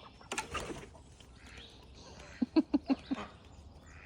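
A short scuffling rustle near the start, then a duck giving a quick run of about five quacks about two and a half seconds in.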